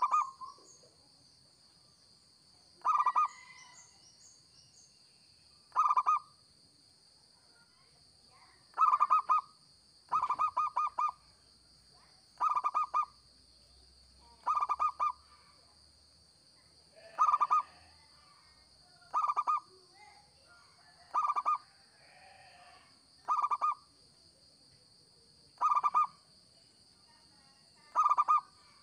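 Zebra dove cooing: a short phrase of rapid, clipped notes repeated every two to three seconds, about a dozen times. A faint steady high-pitched tone runs underneath.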